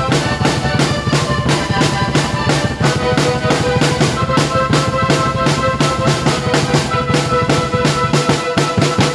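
Drum kit played together with a keyboard: a steady beat of bass drum and snare strokes over held keyboard notes.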